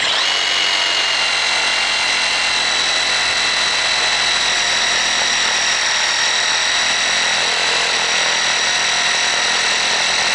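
Kobalt 24-volt one-hand cordless reciprocating saw cutting through a thicker piece of wood, its motor running with a steady, even whine.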